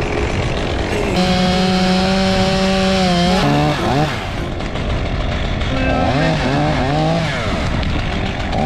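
Chainsaw running at high revs. About a third of the way through, its pitch drops away, and later it rises and falls repeatedly as the throttle is worked in the cut.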